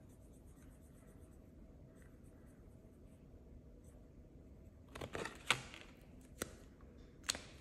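Faint scratching of a highlighter tip colouring in a small shape on a paper card, then a few sharp clicks and taps from about five seconds in as the pen and card are put down.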